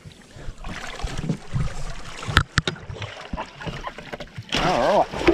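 Sea water splashing and sloshing against a small boat's hull as a big blue bone (blackspot tuskfish) is scooped into a landing net. There are two sharp knocks about two and a half seconds in, and a brief wavering cry near the end.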